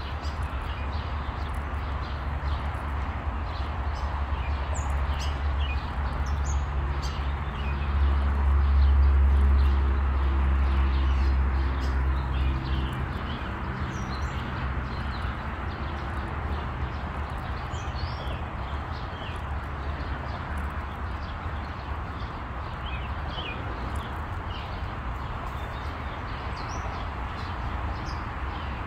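Birds chirping over a steady outdoor hum. A low rumble swells and fades from about eight to thirteen seconds in.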